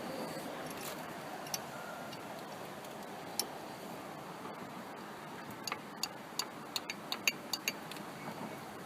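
Light sharp clicks of hand tools, a few scattered at first, then a run of about a dozen quick ticks, roughly two a second, in the second half, over a steady low hiss.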